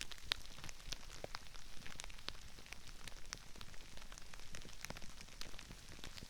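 Crispy rice crackling and popping: a dense, irregular patter of tiny sharp crackles, a little like rain, picked up by a binaural microphone.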